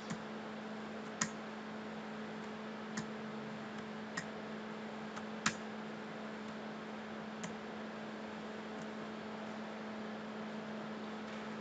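Steady low electrical hum with about six short, sharp computer mouse clicks scattered through it, the loudest about five and a half seconds in.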